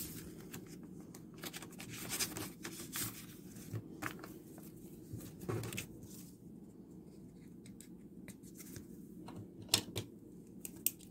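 Paper mail being handled by hand: envelopes and a stiff black card sleeve rustling and scraping in irregular, faint bursts, with a couple of sharper clicks or taps near the end.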